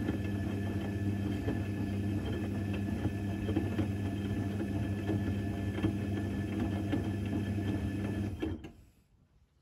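Electrolux EWC1050 washing machine running with a steady low electric hum and a light mechanical rattle; the sound cuts off abruptly about eight and a half seconds in.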